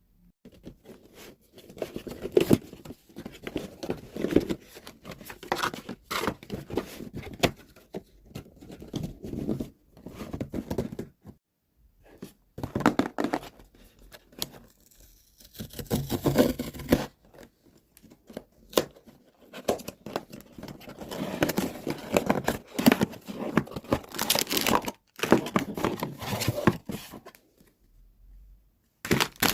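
Blind-box figure packaging being torn open and its plastic wrapping crinkled and handled, in irregular stretches of rustling and crackling with short pauses between them.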